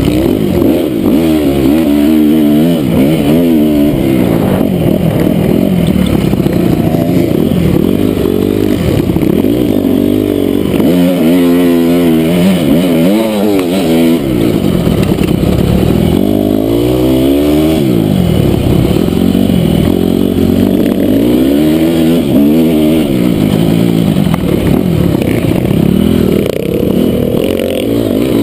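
2008 Honda CRF250R single-cylinder four-stroke engine revving up and down again and again while the dirt bike is ridden hard around a motocross track, its pitch climbing and dropping every couple of seconds through throttle and gear changes.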